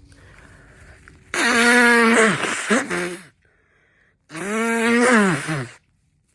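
A person sneezing twice, loud and with a voiced cry, the first about a second in and the second about four seconds in; each is drawn out and drops in pitch at its end.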